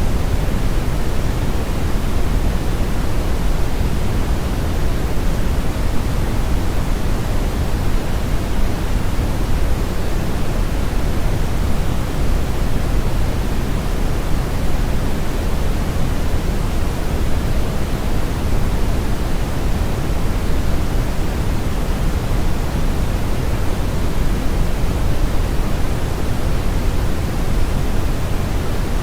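Synthetic brown noise blended with white noise, playing steadily without change: a deep, even rumble with a softer hiss over it.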